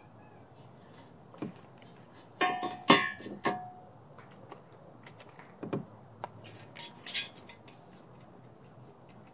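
Steel square tubing and cut steel pieces clanking on a metal workbench. The loudest is a ringing clank about three seconds in, among several knocks, followed by lighter metallic clicks and rattles.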